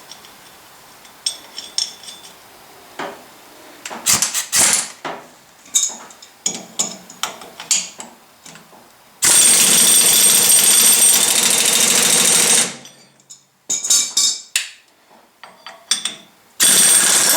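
Impact wrench hammering on double-nutted lug nuts to back out a wheel stud: one run of about three seconds, then a second burst near the end, and the stud does not come out because it is tighter than the first one. Before that, scattered metal clinks of the socket and nuts being set on the stud.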